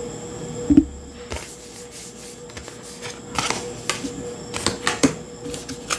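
Tarot and oracle cards being set down and slid onto piles on a table by hand: a sharp tap about a second in, then a run of light clicks and rustles.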